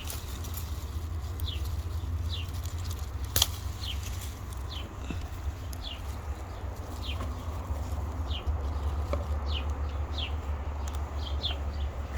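A bird calling over and over with short, high, downward-sliding chirps, about one a second, over a steady low rumble. A single sharp click about three and a half seconds in.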